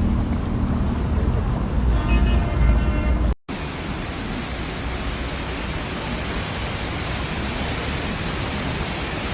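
Flood footage in two shots. First comes a heavy low rumble of water, with a brief pitched sound about two seconds in. Then, after a sudden cut, a steady even hiss of torrential rain and rushing floodwater.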